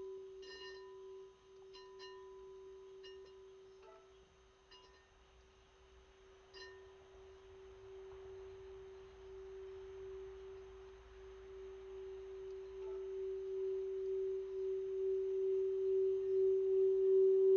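Singing bowl sung by rubbing its rim, holding one steady humming tone that swells louder through the second half.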